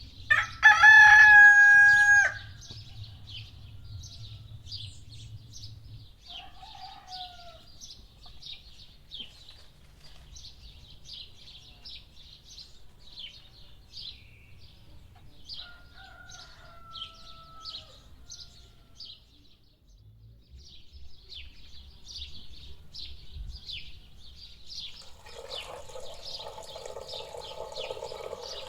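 A rooster crows loudly once near the start, over steady chirping of small birds. Fainter crows follow later, and a rasping sound builds near the end.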